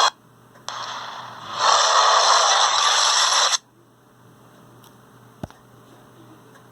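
Kong creature sound effect: a short, rasping breath about a second in, then a louder rasping exhale lasting about two seconds that cuts off abruptly. After it, only a faint hiss with a single click.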